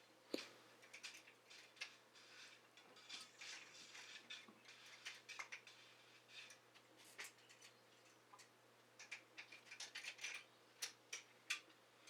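Faint, scattered metallic clicks and ticks of hand tools working on a bicycle's stamped-steel caliper brake, coming quicker and closer together near the end.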